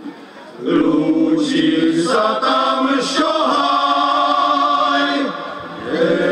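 Men's choir singing in harmony in long held phrases. There is a brief breath break at the start and another just before the end, and a higher, brighter voice part joins about two seconds in.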